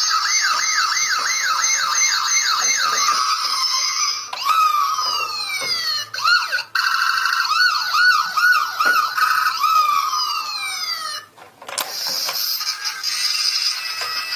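Electronic toy emergency-vehicle siren: a fast wail rising and falling about two to three times a second, then slower overlapping siren sweeps, with a short break near the end.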